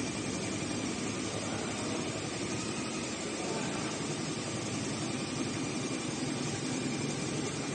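Richpeace CNC heating-wire sewing machine running, its sewing head stitching with a fast, even needle rhythm over a steady mechanical hum.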